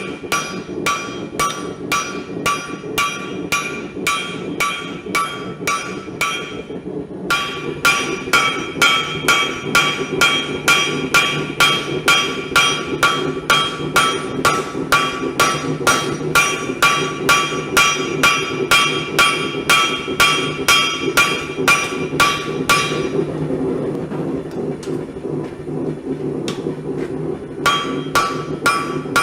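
Hammer blows on hot steel over an anvil, forging an axe head to shape: a steady rhythm of about two ringing strikes a second. The strikes stop briefly about a quarter of the way in, and for about four seconds near the end, with a steady low rumble underneath throughout.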